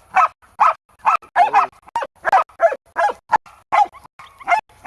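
Hog dogs barking rapidly, about three barks a second, baying a wild hog.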